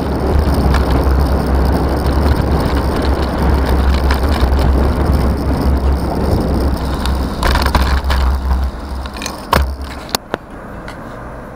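Wind buffeting a bicycle-mounted camera's microphone as the bike rides along, over steady road and traffic noise, with a car passing close alongside. The wind rumble drops away near the end as the bike slows, and a few sharp clicks follow.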